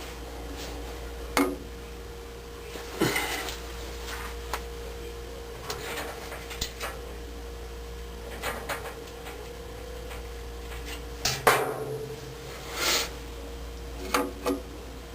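Scattered clicks, knocks and light rattles of tools and small metal parts being handled, over a steady low hum.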